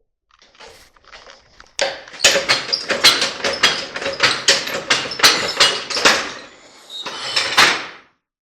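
Hammer blows on a steel driveshaft yoke, knocking in the bearing caps of a universal joint. It is a quick run of sharp metal strikes, about three a second, over a ringing note, then a couple more strikes near the end.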